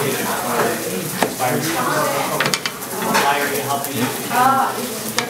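Kitchen knife cutting through a bundle of Korean wild mountain-green stems on a cutting board, a few sharp knocks of the blade, over a steady sizzle from a frying pan and a voice in the background.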